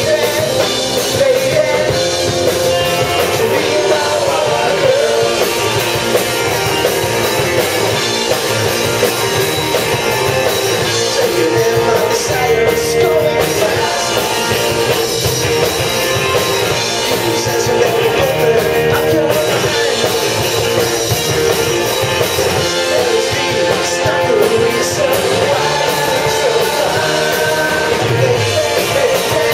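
Live rock band playing: distorted electric guitars, bass and drums with a sung lead vocal, loud and continuous.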